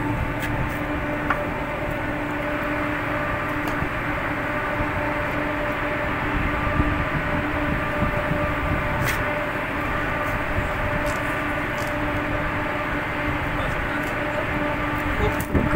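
Steady hum of a ship's machinery: a constant pitched drone over an even rumbling noise, with a couple of faint clicks.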